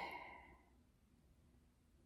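Near silence: room tone, with a brief soft exhaled breath fading out at the very start.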